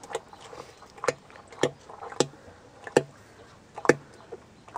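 Molasses glugging out of a tipped plastic jerrycan into a plastic bucket: hollow glugs about once a second, uneven, as air gulps back into the can.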